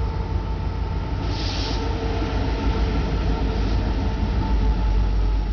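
Union Pacific diesel locomotives at the head of an intermodal freight train passing close by: a heavy rumble that grows louder toward the end, with a steady whine running through it. A short hiss comes about a second and a half in.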